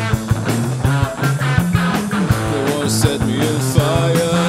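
Rock music with guitar over a steady beat, no vocals.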